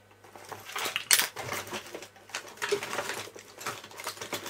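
Irregular clicks, taps and rattles of small objects being handled and rummaged through, with one sharp click about a second in.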